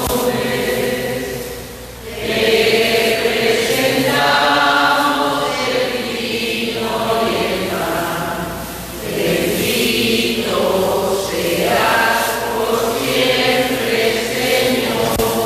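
A choir singing a hymn, the offertory song of a Catholic Mass, in long held phrases with short breaks between them.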